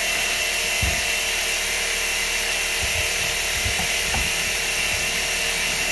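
Shop fan running steadily, with a few soft low thumps from handling the gas can and fuel hose on the metal bench.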